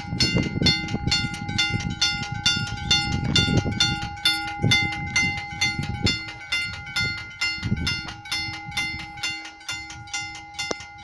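Italian level-crossing warning bell ringing continuously in rapid, evenly spaced strikes, about three a second, over a gusty low rumble.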